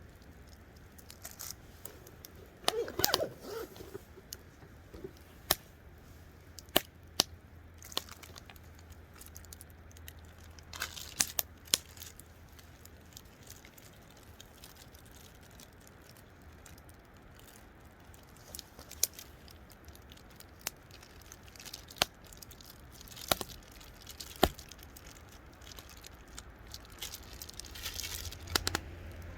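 Sporadic clicks, taps and rustling of hands handling steak and wooden sticks while skewering meat for cooking over a fire.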